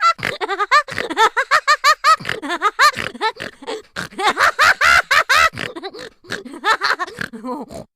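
High-pitched laughter sound effect: a long run of quick 'ha' pulses, about five a second, that stops abruptly near the end.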